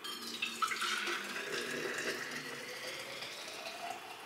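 Freshly boiled water poured in a steady stream from a stainless steel pot into a steel thermos flask, splashing, with a tone that rises gradually in pitch as the flask fills.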